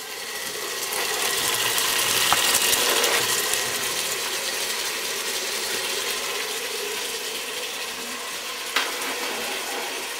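Chopped tomatoes sizzling and crackling as they hit hot oil in a steel pot with sautéing onion, garlic, ginger and chilli; the sizzle swells over the first couple of seconds, then slowly settles. Two sharp knife taps, about two seconds in and near the end.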